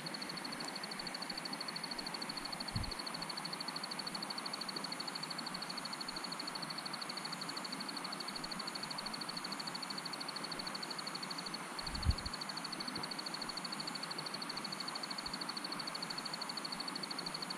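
Night insects trilling steadily at a high pitch, with a fainter insect chirping about once a second above it. Two soft low thumps, about three seconds in and again about twelve seconds in.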